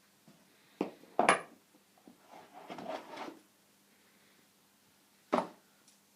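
Hard knocks and rubbing from an item and its packaging being handled during an unboxing: two sharp knocks about a second in, a short stretch of scraping and rubbing, then another sharp knock near the end.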